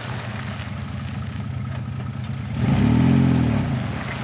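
A vehicle engine running steadily, with one brief rev about three seconds in, its pitch rising and falling back.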